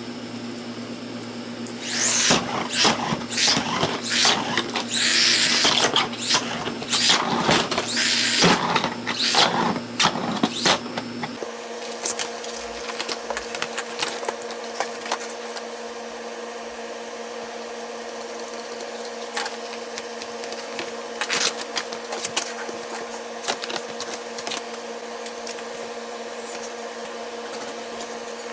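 Small DC toy-car motor running with a steady whine that jumps higher about eleven seconds in. Clattering and clicking over the first ten seconds.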